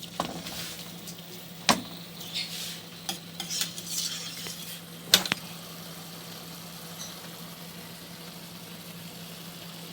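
Zucchini cores and garlic sizzling in oil in a pan while a spoon stirs them, clinking sharply against the pan a couple of times, near two seconds in and about five seconds in. The busier stirring dies down in the second half, leaving the sizzle under a faint steady hum.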